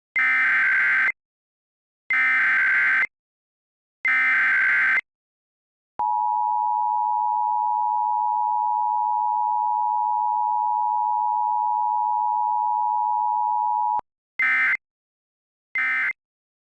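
Emergency Alert System SAME header: three one-second bursts of digital data tones, two seconds apart, then the steady two-tone attention signal for about eight seconds, which cuts off abruptly. Two shorter data bursts follow near the end.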